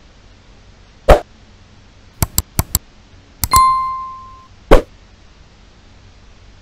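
Subscribe-button overlay sound effect: a short pop, four quick mouse clicks, a click with a bell ding that rings out for about a second, then another short pop.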